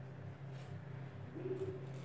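Butter paper being peeled off the bottom of a baked sponge cake, faint crinkles of paper over a steady low hum.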